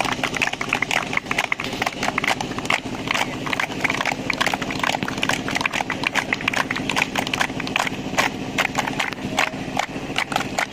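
A group of footballers clapping their hands in quick, uneven claps throughout, over a low steady hum.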